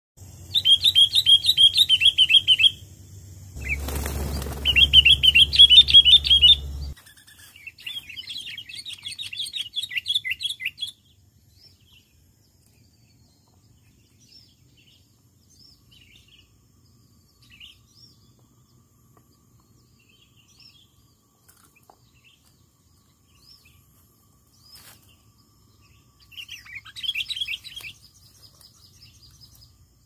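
Sooty-headed bulbuls (kutilang) giving loud, rapid chattering trills in three bursts over the first ten seconds, then scattered faint chirps and another short burst near the end. A low rushing noise runs under the second burst, about four to seven seconds in.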